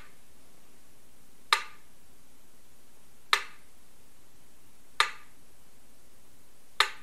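Four sharp clicks, evenly spaced about every second and a half to two seconds, over a steady hiss.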